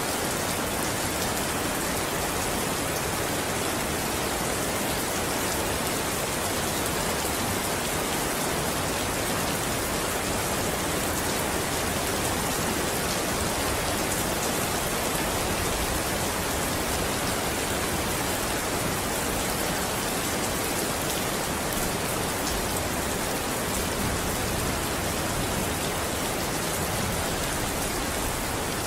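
Steady rain falling and pattering on a surface, an even hiss with scattered faint drop ticks.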